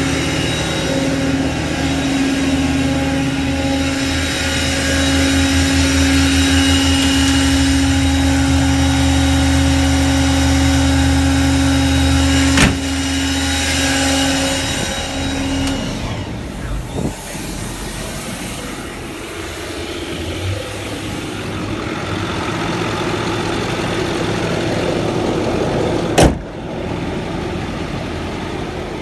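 Bed-mounted Vanair air compressor, driven by the truck's PTO, running with a steady drone together with the 6.4 Power Stroke diesel, building air pressure. About halfway through the drone drops away, leaving a quieter engine idle. Two sharp knocks stand out, one before the change and one near the end.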